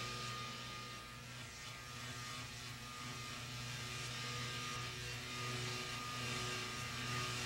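Steady electronic drone: a low hum with a thin, held high tone over a hiss that swells a little midway.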